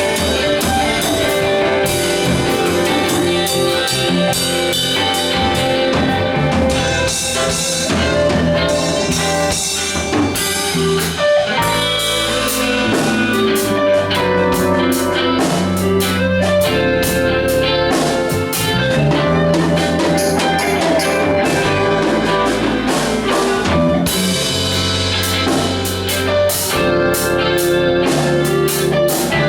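Live band playing instrumental music: guitar over a drum kit, with a bass line moving underneath.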